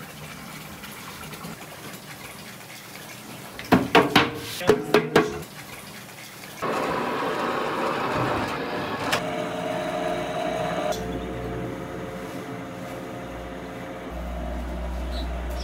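A quick run of about six sharp slaps or knocks about four seconds in, then a dough rounding machine running steadily.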